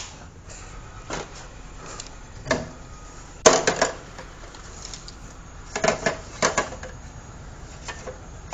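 Scattered hard clacks and clatters, some in quick clusters, of plastic drain pipe and fittings being knocked and shifted into position.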